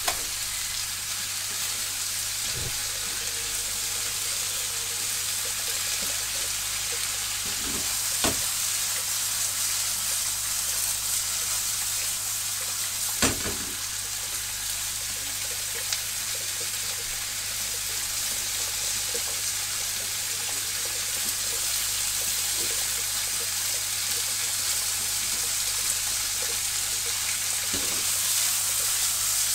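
Chicken skin and sliced green peppers sizzling steadily as they stir-fry in a frying pan, with a few sharp knocks from the stirring against the pan, the loudest about 13 seconds in.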